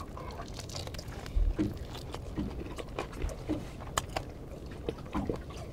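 A person chewing raw hairtail sashimi sliced with its bones, close to the microphone: small wet clicks and soft chewing sounds over a low rumble, with a low thump about a second and a half in.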